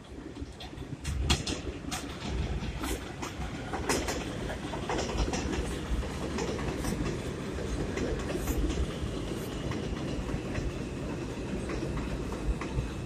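R142 subway train rolling into an elevated station, its wheels clacking over the rail joints and the running noise building as the cars pass close by.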